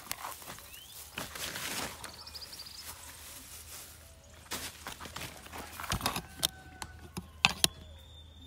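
Hands scraping and scratching at loose dry soil at the foot of a sapling, with scattered rustles and small knocks.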